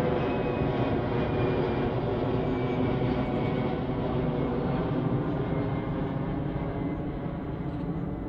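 Airplane passing overhead: a steady engine rumble with faint tones running through it, slowly fading toward the end.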